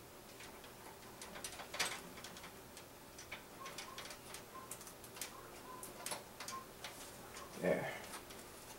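Faint, irregular light clicks and ticks of hands working on parts inside a computer case, with a brief voice-like hum near the end.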